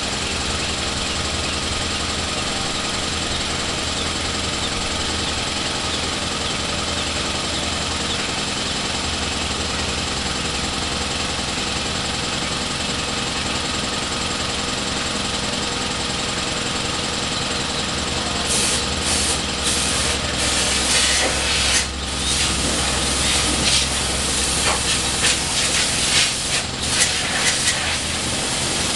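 Compressed air hissing from an air hose over a steady engine hum, blowing dirt off a riding mower; from about two-thirds in the air comes in short, irregular blasts.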